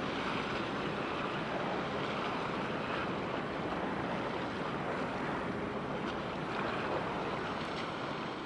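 Steady wind noise on the microphone mixed with the wash of water at the shoreline.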